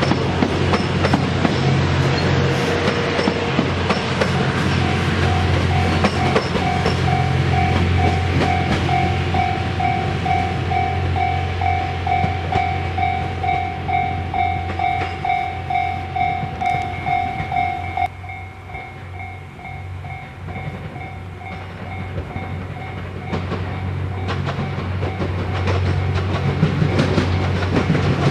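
Japanese level-crossing alarm ringing in a quick, steady beat, which cuts off suddenly partway through, over the steady low drone and wheel clatter of a diesel train moving over the crossing.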